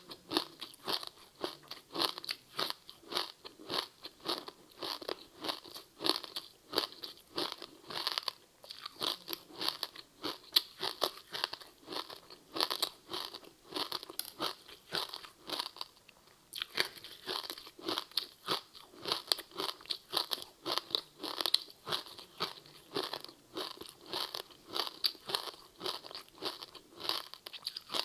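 Close-miked crunching and chewing of a crispy seaweed-wrapped rice snack: a dense run of crisp crackles, with a brief pause about halfway through.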